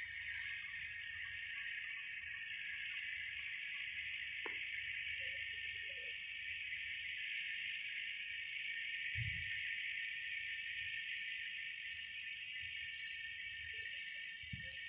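Steady, continuous drone of insects, with a few faint chirps about five seconds in and near the end. Low rumble sits underneath, with a sharp click about four and a half seconds in and low thumps about nine seconds in and near the end.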